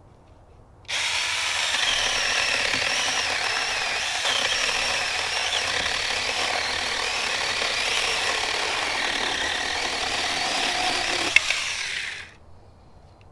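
Cordless battery-powered mini chainsaw running with its trigger held: the electric motor and chain start suddenly about a second in, run steadily, and cut off near the end, with a sharp click just before it stops.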